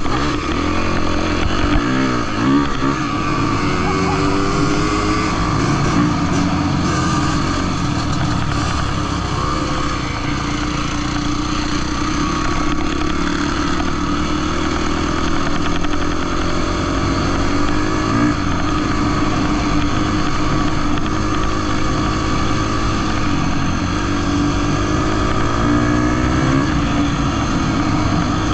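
Husqvarna dirt bike engine running under way on gravel, its revs rising and falling a few times, about two seconds in, near 18 seconds and again near 26 seconds.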